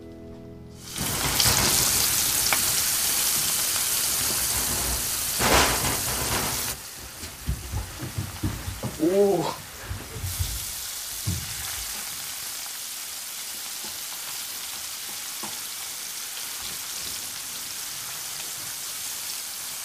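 A steady hiss that cuts in suddenly about a second in and is loudest for the first six seconds, then settles to a softer, even hiss. A few knocks and a short pitched sound come between about eight and ten seconds in.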